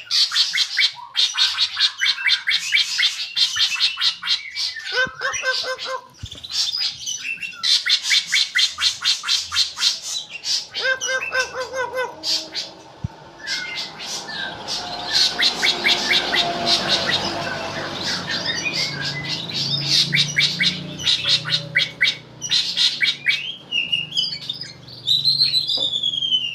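White-rumped shama singing a varied song: fast runs of rapidly repeated sharp notes and harsh squawks, broken by short pauses, with a falling whistled note near the end.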